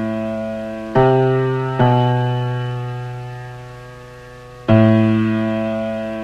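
Film soundtrack music: slow, single low keyboard notes, each struck and left to die away. Three notes are struck one after another, the second left ringing for nearly three seconds before the next.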